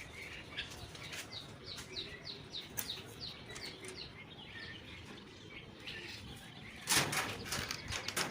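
Day-old broiler chicks peeping: short, high, falling peeps, about three a second, thinning out after about four seconds. About seven seconds in, a loud, brief scraping rustle.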